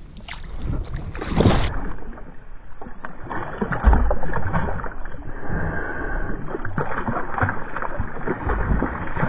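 Large rainbow trout thrashing at the surface beside a kayak while being grabbed by hand, with irregular splashing water, loudest about a second and a half in and again about four seconds in.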